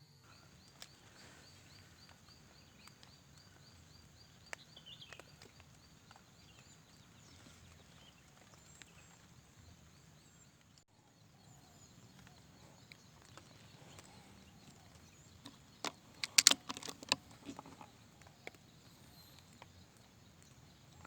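Faint countryside ambience with a rapid, even ticking during the first few seconds, then a quick run of sharp clicks and knocks about three quarters of the way through.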